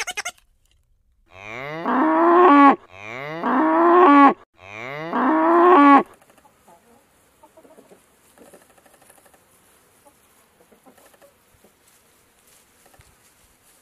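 A cow mooing three times in quick succession, each moo a long pitched call that rises at its start and swells in loudness. Faint, scattered clucking of chickens follows.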